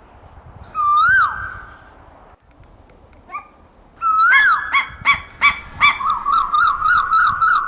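Asian koel calling. A single loud whistled note rises then falls about a second in. A second comes at about four seconds, followed by a quick run of short rising-and-falling notes that speeds up toward the end.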